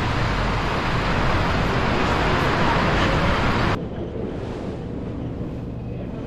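Wind buffeting the microphone and water rushing past a moving motor boat, with a low engine hum underneath. The noise drops suddenly to a quieter level about four seconds in.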